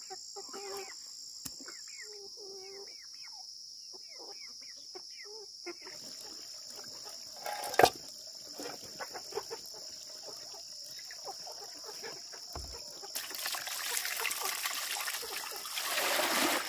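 A chicken clucking in short calls, then a single knock about eight seconds in. Near the end, water is poured from a basin into a metal cooking pot over a plucked chicken for about three seconds, over a steady high drone of insects.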